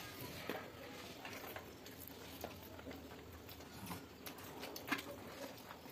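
Quiet eating by hand: soft chewing and mouth noises with scattered small clicks of fingers and food against a steel thali plate, one sharper click about five seconds in.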